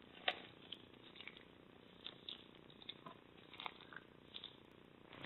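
Macaroni-and-cheese slime being stretched and squeezed by hand: faint, scattered sticky clicks and small pops as it pulls apart, with a louder pop about a quarter second in and a much louder one at the very end.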